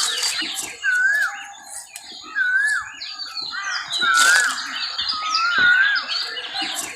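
Birds singing: a short wavy whistled phrase repeats about every second and a half, over a busy background of quicker, higher chirps from other birds.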